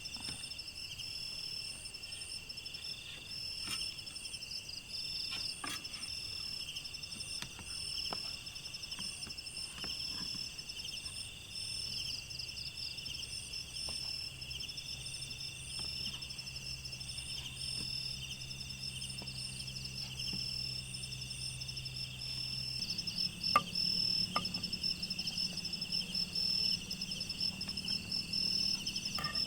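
Insects chirping in a steady, high-pitched pulsing chorus. A low hum joins in partway through and grows louder about two-thirds of the way in.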